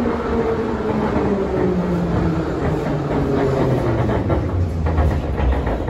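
Vintage metro train running, heard from inside the car: a steady rumble with a motor whine that falls in pitch throughout, as the train slows. A few sharp clicks come near the end.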